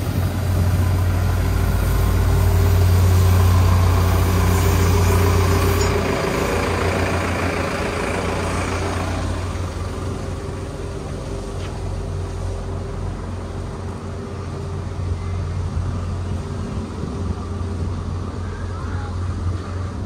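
Street traffic, with a large vehicle's engine running close by: loudest in the first few seconds, then fading after about six to nine seconds into a lower traffic rumble.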